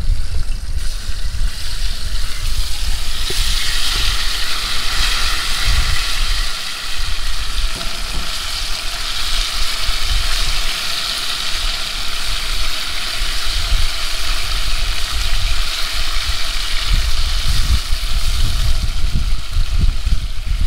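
Food sizzling as it fries in oil in a metal pot on a camp grill-stove, the sizzle growing stronger about three seconds in. Wind rumbles across the microphone throughout.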